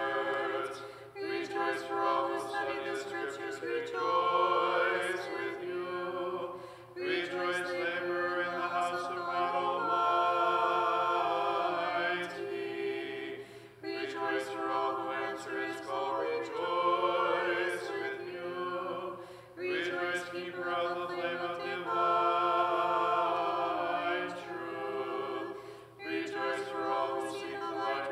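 Unaccompanied Orthodox church choir singing a hymn in several voices, in sustained phrases with short breaks between them.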